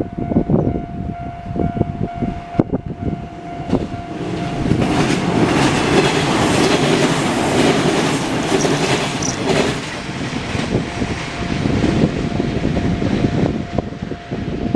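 A train passes over a Japanese railway level crossing while the crossing's warning alarm rings on one steady pitch throughout. The wheels clack over the rail joints. The train's rumble swells loudest about five seconds in, holds for about five seconds, then eases as the last cars clack past.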